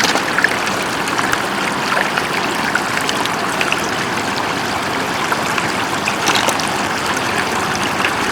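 Shallow floodwater flowing steadily over a road: a continuous rushing, trickling sound.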